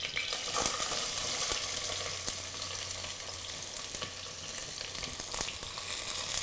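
Sliced onions sizzling and crackling in hot vegetable oil in a pan, growing louder about half a second in, with a few faint knocks.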